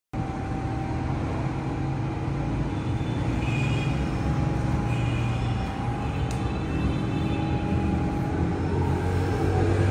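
A motor running steadily with a low hum and some higher tones coming and going. It cuts in abruptly.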